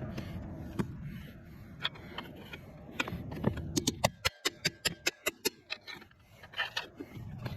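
A ratchet wrench working on the turbo nuts: a quick run of about ten sharp clicks about four seconds in, after a low rumble and some metal scraping.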